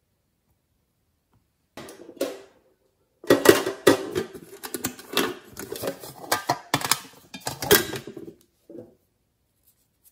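Hands unwrapping a small box: fingernails peeling at its plastic wrapping, a dense run of crinkling and clicks starting about two seconds in and stopping after about eight seconds.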